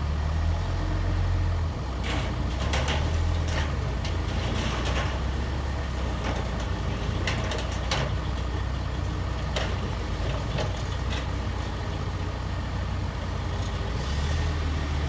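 Case 445 skid steer's diesel engine running steadily, its pitch shifting about two seconds in and again near the end, with scattered sharp cracks and knocks typical of a small wooden shed being broken apart.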